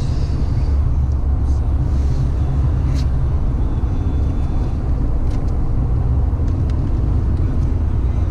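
Steady low drone of a car's engine and tyres heard from inside the cabin while driving, with a few faint ticks.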